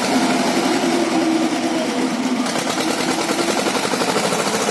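UAZ Bukhanka van's engine running steadily, a dense even pulsing with a hum that drifts slightly in pitch.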